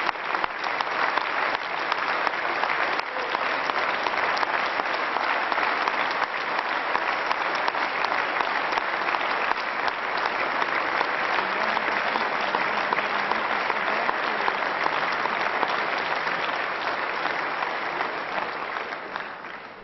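Sustained applause from a large assembly, many hands clapping at once, dying away at the very end.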